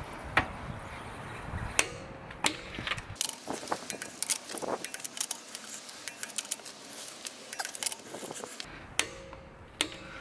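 Hand ratchet wrench working car wheel lug nuts: a run of irregular metallic clicks and ticks from the ratchet and socket, a few sharper louder clicks among them.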